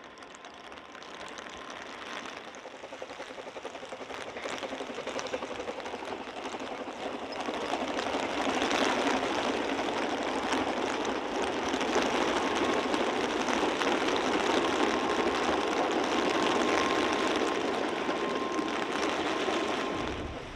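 Narrow-gauge steam train, the 1867 George England 0-4-0 saddle tank Welsh Pony hauling a rake of wagons, running past. The sound of the train grows over the first several seconds, is loudest through the middle as it passes, and drops away near the end.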